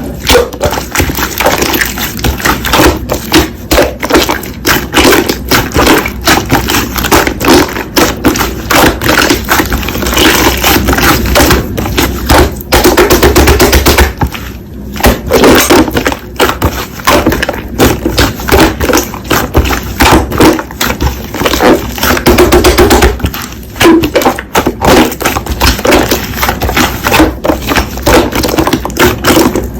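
Slime being squeezed and poked by hand, making dense, irregular crackling and popping clicks.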